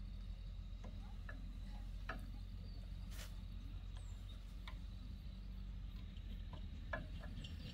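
A steady low mechanical hum with scattered light clicks and ticks.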